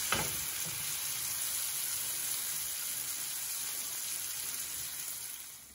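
Potato wedges, onions and curry leaves sizzling in oil in a frying pan over medium heat, a steady hiss, with a brief scrape of a wooden spatula at the start. The sizzle fades out near the end.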